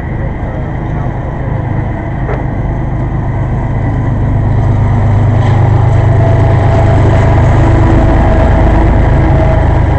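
Intermodal freight train rolling past on the rails, with a CSX diesel locomotive's engine rumble growing louder from about halfway in as the locomotive comes alongside.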